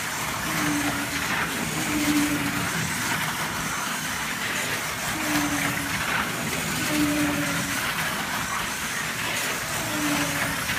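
Scaleauto slot cars running laps on a multi-lane track: a steady rumble and whir from their electric motors and from the cars riding the track, with a short hum every second or two.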